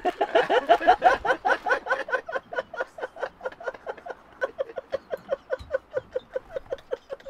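Inflated rubber balloon squeaking as it is handled: a rapid run of short rising squeaks, about six a second, loudest over the first two seconds and fainter after.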